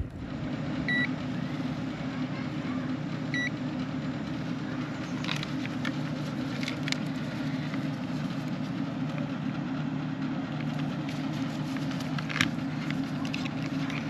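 Two short, high beeps from a digital clamp meter, about one second and three and a half seconds in, over a steady low machine hum. A few light clicks from handling the meter leads and the fuse block.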